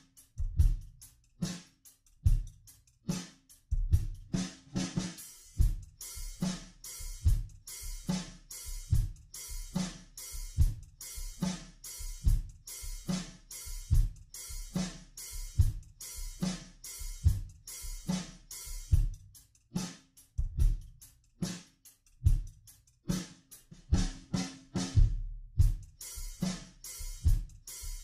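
Background music with a steady drum-kit beat: kick drum, snare and hi-hat cymbals repeating evenly.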